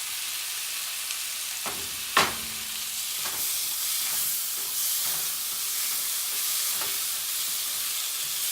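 Chopped tomato and onions sizzling in hot oil in a frying pan, stirred with a spoon that scrapes and knocks against the pan. One sharp knock about two seconds in, with lighter ones after it.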